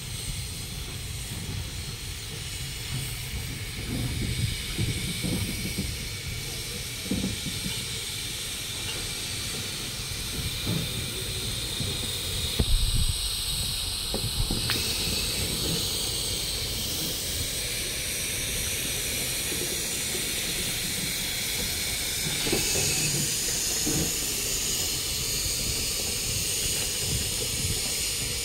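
Steam locomotive 65894, an LNER J27 0-6-0, hissing steam steadily over a low rumble, with scattered light knocks and one louder low thump about halfway through.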